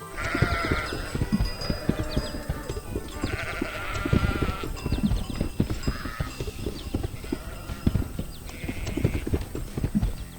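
Cartoon farm-animal calls, bleat-like, heard about four times over a dense, uneven clatter of knocks, with background music. The clatter starts suddenly and cuts off at the end.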